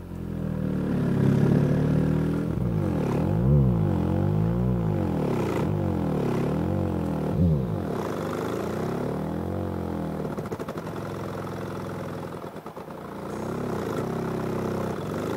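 Obsidian Audio 18-inch v2 subwoofer driven at long excursion with a low bass tone whose pitch slides down and back up over and over, about once a second. It has a buzzy edge and settles into a steadier drone in the second half.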